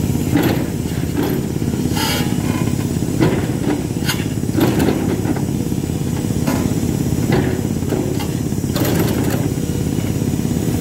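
Hidromek 390LC H4 excavator's diesel engine running steadily under load, with irregular knocks and scrapes as its ripper tooth tears at marble quarry rubble.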